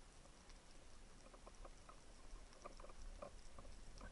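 Faint underwater crackle: irregular soft clicks and pops, several a second and thickest in the second half, over a low hiss, as heard on an underwater camera's microphone over a rocky reef.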